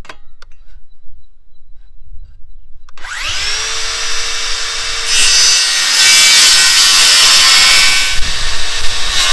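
Handheld electric power tool starting up about three seconds in, its whine rising to a steady pitch. It then works under load, getting louder and harsher from about five seconds on.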